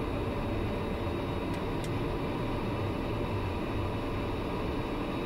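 TBM 900's Pratt & Whitney PT6A turboprop engine and propeller running at low power, a steady noise heard from inside the cabin as the plane taxis off the runway after landing.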